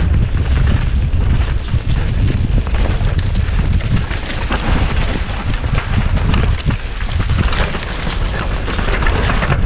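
Wind buffeting a helmet-mounted camera's microphone with a deep, uneven rumble, over the clatter and knocking of a mountain bike descending rough trail at speed.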